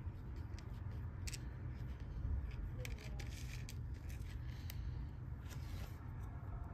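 Fingertips and nails picking up and shifting small 3D-printed resin model parts on a tabletop: irregular light clicks and short scrapes, over a low steady hum.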